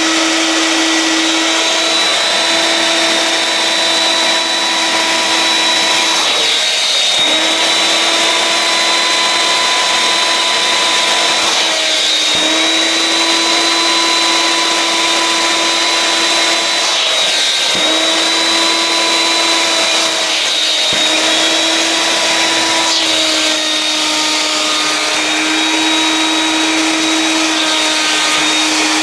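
Vax 221 wet/dry canister vacuum's two-stage motor running steadily, a loud whine over rushing air, its pitch dipping briefly several times as the attachment is worked.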